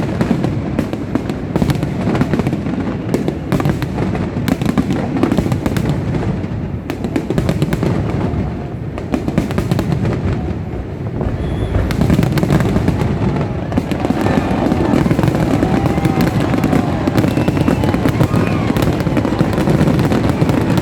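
Aerial fireworks display: a dense run of bangs and crackles over a steady low rumble.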